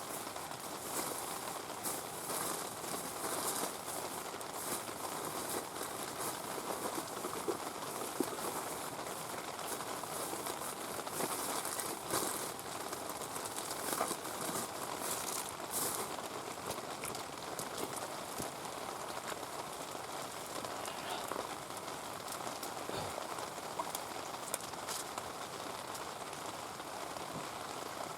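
Heavy rain falling steadily, with the small pops and crackles of a wood campfire scattered through it.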